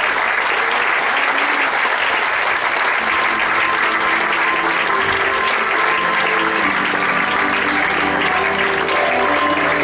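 Theatre audience applauding steadily at a curtain call, with music playing underneath that comes through more clearly near the end.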